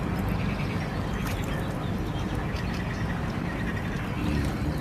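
Spawning crucian carp splashing and thrashing at the surface of shallow water among snags, a run of small irregular splashes, over a steady low rumble.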